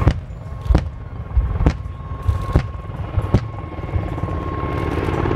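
Helicopters flying past: a steady low rotor rumble with a fast blade beat and a thin steady whine. About five sharp knocks break in, each under a second apart.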